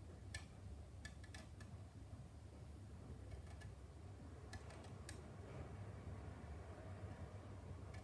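Faint short scraping clicks from a hand tool scribing deeper panel lines into a plastic model car body shell, coming in scattered little groups, over a steady low hum.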